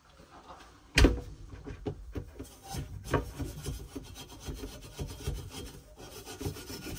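Copper pipe being scrubbed clean with an abrasive pad to prepare it for a soldered joint: quick, repeated rubbing strokes, with a sharp knock about a second in.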